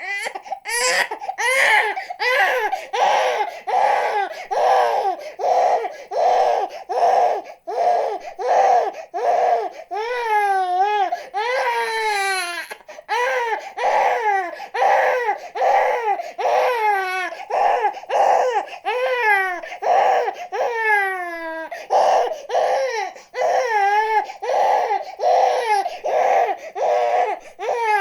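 Infant crying hard in short, rhythmic cries about two a second, with a few longer wails that fall in pitch partway through.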